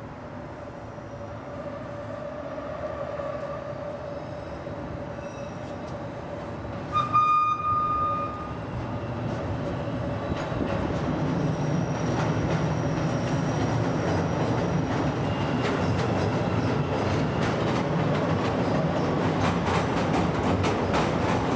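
A train passing close by, growing steadily louder, with thin high whining tones over the rumble and a brief loud tone about seven seconds in. Near the end a fast clatter of wheels over the rails builds up.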